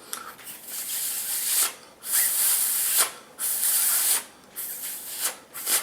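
Breath blown hard into an AirPod's air vent to drive out water left from cleaning: a series of hissing puffs, three long blows of about a second each, then a few shorter ones near the end.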